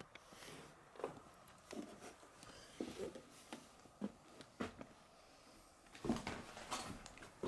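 Footsteps on a floor littered with plaster debris and loose boards: an irregular run of steps, scrapes and creaks, loudest about six seconds in.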